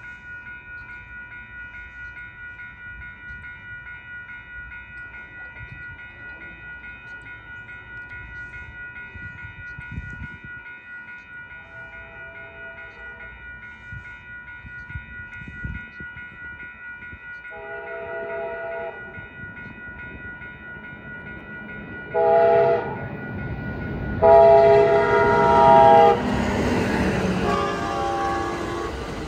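A railroad grade-crossing bell rings steadily while an approaching Siemens Charger SC-44 locomotive sounds its horn in the crossing pattern: two long blasts, a short one and a long one, each louder than the last. Near the end the train rushes past with a loud roar of wheels on rail, and a last fainter horn note follows.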